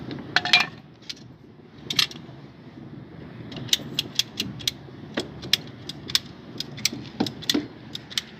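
Light clicks, clinks and knocks of plastic pipe lengths and fittings and metal hand tools being handled. A few sharp knocks come about half a second and two seconds in, then a run of irregular small clicks.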